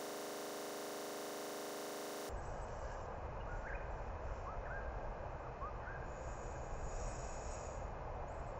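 A steady buzzing hum cuts off abruptly about two seconds in. Faint outdoor park ambience follows: a low rumble with a few short, faint bird chirps.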